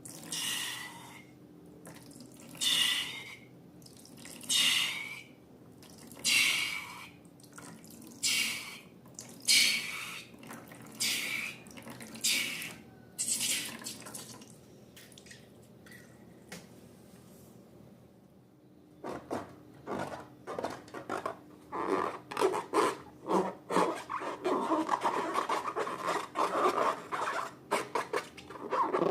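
Wet liquid and slime sounds: about eight separate squirting spurts, roughly one every second and a half. After a quieter pause of a few seconds, a dense run of sticky crackling and popping, typical of slime being stirred and squished.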